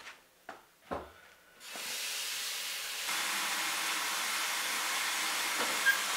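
Bathroom sink tap turned on about a second and a half in, water running steadily into the basin.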